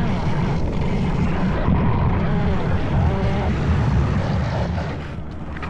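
Loud, steady rumble of hard skate wheels rolling fast over asphalt, mixed with wind noise on the microphone; it eases off somewhat near the end.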